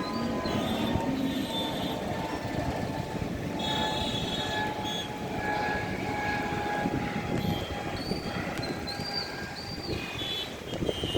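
Dense road traffic in a jam: a steady mass of engine noise with several vehicle horns honking at different pitches, some held for a second or more.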